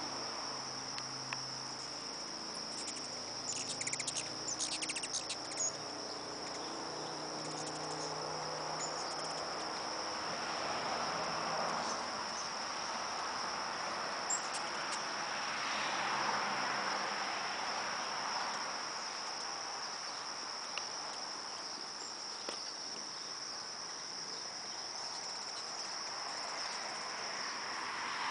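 A steady, high-pitched insect chorus, one unbroken shrill tone, with a cluster of short faint chirps or clicks about three to six seconds in and a soft rushing background that swells and fades.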